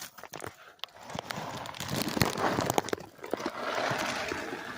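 Dry cat food kibble being poured out, pieces rattling down in two pours: one starting about a second in, the other about three seconds in.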